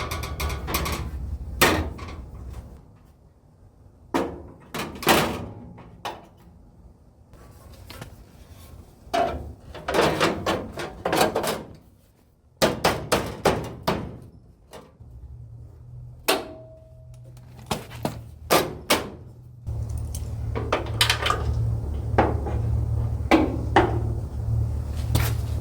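A hammer knocking and tapping on sheet-steel body panel pieces as they are fitted into place: irregular single blows and short runs of taps, each with a brief metallic ring. A steady low hum runs underneath near the start and again from about halfway through, getting louder in the last few seconds.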